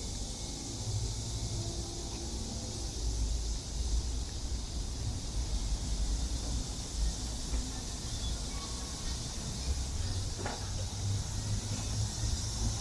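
Cicadas droning in a steady high-pitched summer chorus, over a low rumble.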